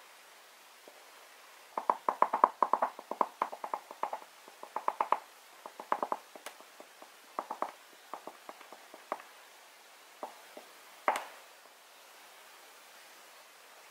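Mungyo soft oil pastel stick scratching across paper in quick short colouring strokes, several a second at first, then sparser. One louder tick comes near the end.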